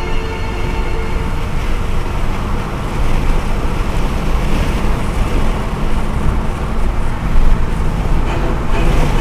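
Steady rush of wind and road noise from a Rover 25 GTi cruising at speed, with wind buffeting the phone's microphone as it is held out of the open window.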